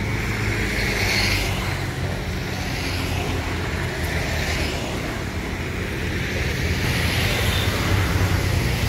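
A bus's diesel engine idling steadily, a low even rumble, with the hiss of road traffic swelling and fading over it.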